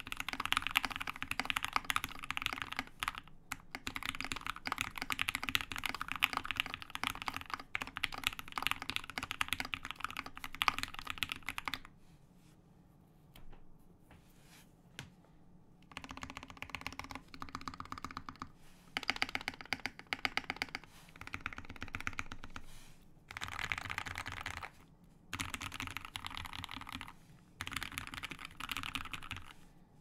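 Fast typing, about 150 words a minute, on a Key65 65% mechanical keyboard with lubed and filmed Tealios V2 67g linear switches on a titanium plate. Keystrokes run densely, thin out to a few scattered presses for about four seconds near the middle, then resume in spurts with short pauses.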